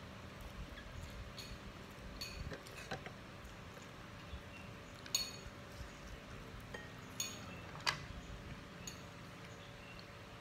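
Metal spoons clinking against ceramic bowls and plates during a meal: a handful of separate light clinks, the sharpest about five and eight seconds in.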